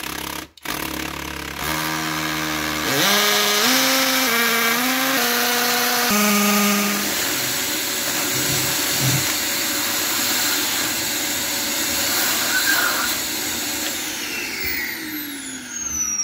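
Cordless drill boring into a concrete floor with a masonry bit, its motor speed stepping up and down under the trigger before it settles into a steady grinding run. A vacuum nozzle held at the bit draws off the dust, and a motor winds down slowly over the last two seconds.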